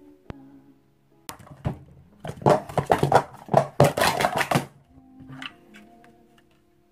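Plastic sport-stacking cups (Speed Stacks) clattering during a fast timed stacking run: a quick flurry of light plastic clicks and knocks lasting about three seconds.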